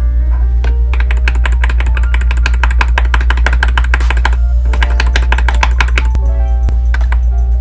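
Varmilo EC Rose V2 linear keyboard switch on a keychain switch tester, pressed rapidly: fast runs of plastic key clacks, a brief pause near the middle, then fewer presses toward the end. Background music plays throughout.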